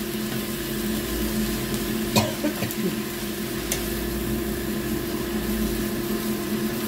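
Water spinach sizzling in a hot frying pan as it is stir-fried with a wooden spatula, over a steady low hum. Two sharp knocks of the spatula against the pan, about two seconds in and again near four seconds.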